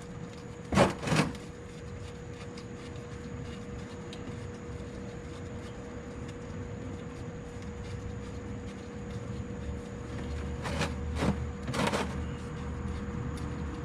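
Hand tools knocking sharply on metal while working a stuck, over-torqued oil drain bolt: two knocks about a second in and three more near the end, over a steady low hum.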